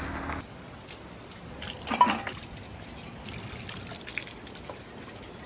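Spring water trickling and dripping, with one louder drop about two seconds in.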